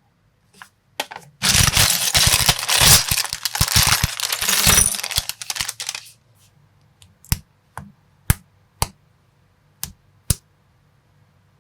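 Small plastic building-block pieces clattering and rattling together for several seconds, then a handful of separate sharp clicks as pieces are snapped or set down one at a time.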